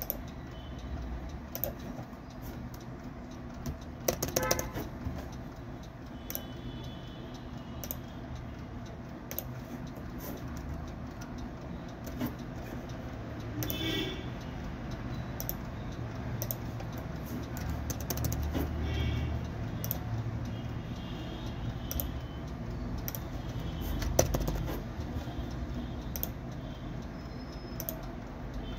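Steady low background hum with scattered small clicks and taps, a brief cluster of them about four seconds in, and a few faint high chirps.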